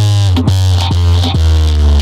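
Loud electronic dance music with heavy bass played through a DJ sound system's speaker cabinets and aluminium horn speaker. Falling synth tones sit over a sharp beat about twice a second.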